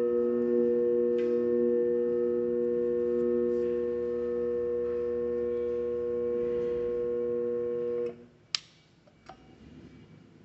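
Pipe welding positioner's drive motor and gearbox running with a steady whine. It cuts off abruptly about eight seconds in, followed by a sharp click and a smaller click.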